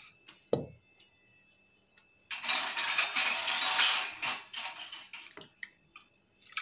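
Wooden hand churner (mathu) worked in an aluminium pressure cooker, mashing cooked tomatoes, garlic and pepper. A soft knock comes near the start, then about two seconds in a dense scraping, rattling clatter runs for about three seconds and stops.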